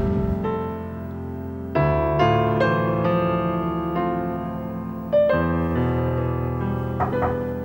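Piano music playing slow, held chords.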